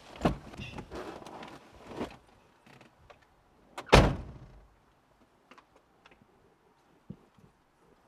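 Car door opening with a click and rustling as someone gets out, then slammed shut with a heavy thump about four seconds in; a small click near the end.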